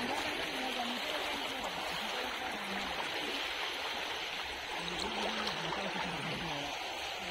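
Steady rush of shallow river water churning around legs wading through the current, with faint voices in the background.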